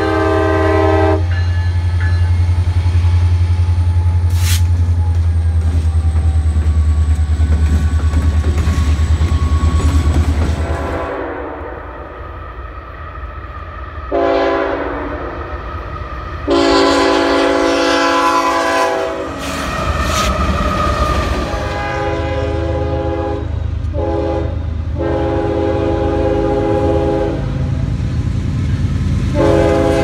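Diesel freight locomotive horns sounding multi-note chords in several long and short blasts. For about the first ten seconds, between horn blasts, a locomotive's diesel engine makes a loud low rumble as it passes close by.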